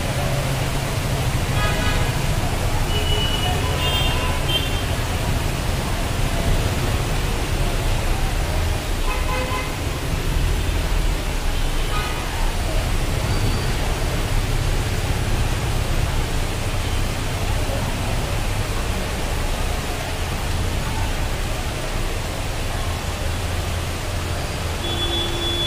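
Floodwater rushing down a street as a steady, loud wash of noise, with vehicle horns tooting briefly several times.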